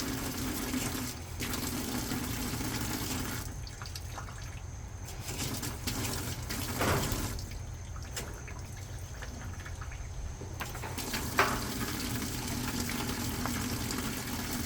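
Water running into a GE top-loading washing machine, with a steady hum from the machine that stops for several seconds mid-way and then resumes; a sharp click a little after the hum returns.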